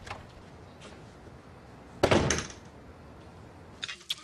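A door slams shut once, about two seconds in, over faint room tone.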